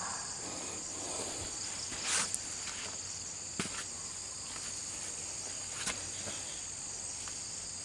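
Steady high-pitched chirring of insects, with a few soft knocks and a brief rustle about two seconds in.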